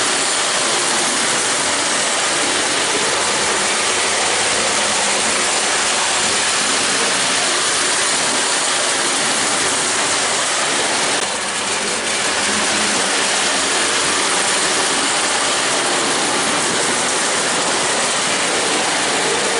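Marx Commodore Vanderbilt toy locomotive's electric motor and gears running steadily as it pulls its cars along the track. The whirring and rattling dips briefly about eleven seconds in.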